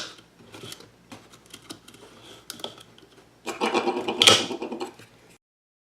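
Plastic clicks and scraping of a LawnMaster trimmer's replacement spool being pushed back into the head, with a sharp click at the start and a louder stretch of rattling about three and a half seconds in. The sound cuts off abruptly near the end.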